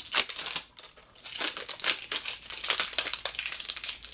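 Thin plastic wrap crinkling as it is handled and peeled off a hand soap bottle, in two stretches of rustling with a short pause about a second in.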